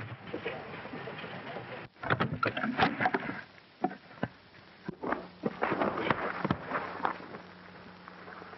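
Wooden wagon crashing down a hillside: a run of loud clattering wooden crashes and knocks, starting abruptly about two seconds in, then a few single knocks and a second burst of clatter. This plays over the hiss and hum of an old optical film soundtrack.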